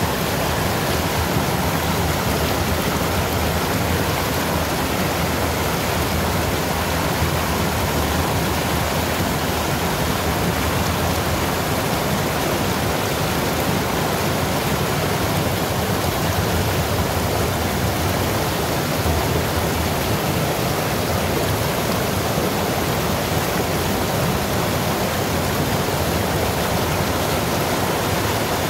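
Fast muddy floodwater rushing and churning through an eroded gully: a steady, unbroken rush of water.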